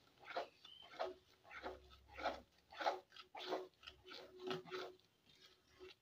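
A spatula stirring and scraping a thick rice-flour and milk sandesh mixture around a metal pan, about two wet, squelching strokes a second. It is stirred constantly to keep the thickening mixture from sticking to the bottom of the pan.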